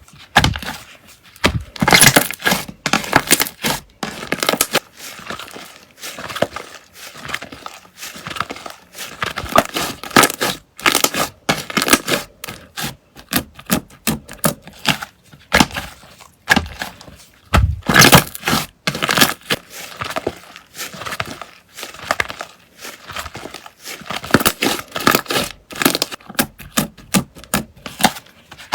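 Slime being worked by hand, giving dense, irregular crackling and popping clicks.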